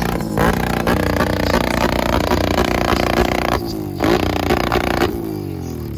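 An ATV engine revving up and down over loud music, its pitch sliding down near the end.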